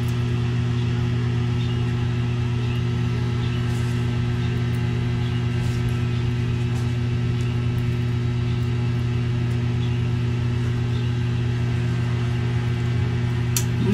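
A steady low hum of a motor or machine running without change, with a few faint light clicks of cutlery.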